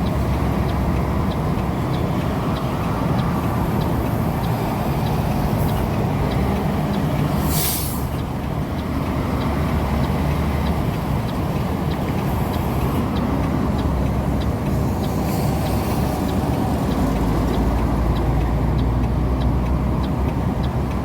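Semi-truck cab on the move: steady diesel engine and road rumble, with a faint regular ticking throughout and one short, sharp air hiss about seven and a half seconds in.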